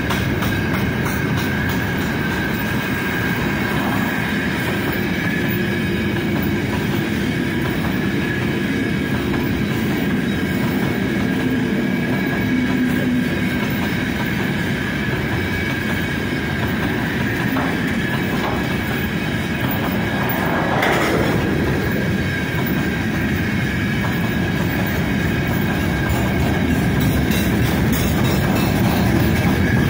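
Wagons of a long freight train rolling past close by: a steady rumble and clatter of steel wheels on the rails, with a faint high wheel squeal.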